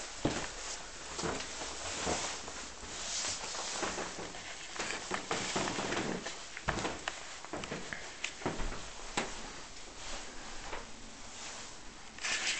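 Handling noise from a handheld camera carried through a house: irregular rustling with soft knocks and clicks.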